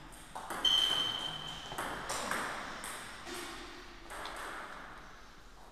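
Table tennis rally: a celluloid ball struck by rubber paddles and bouncing on the table, a quick run of sharp clicks in the first two and a half seconds and one more near four seconds in. The loudest hit, about half a second in, carries a brief high ringing tone.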